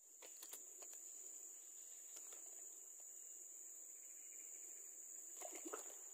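Steady high-pitched insect chorus shrilling in the creekside forest, with a few faint clicks and handling noises near the start and again near the end.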